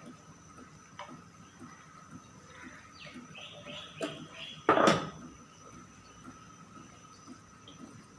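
Kitchen cookware sounds: a couple of faint knocks, then one loud clatter of a utensil against the cooking pot about five seconds in. A short run of distant bird calls comes just before the clatter.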